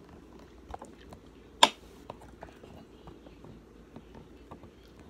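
One sharp knock about one and a half seconds in, among faint scattered taps and clicks, over a low steady room hum.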